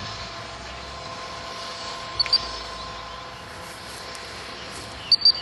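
A dog training whistle blown in short, shrill double pips, twice: about two seconds in and again near the end. These are whistle commands to a springer spaniel. A steady hum runs underneath.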